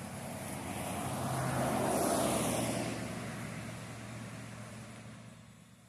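A vehicle passing by: a steady engine noise that builds to its loudest about two seconds in, then fades away.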